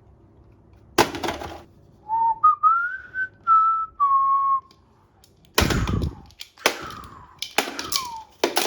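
Toy gun firing: a sharp crack about a second in, then a whistle-like tone that rises and steps down over a couple of seconds. Near the end come four more quick cracks, each followed by a short falling tone.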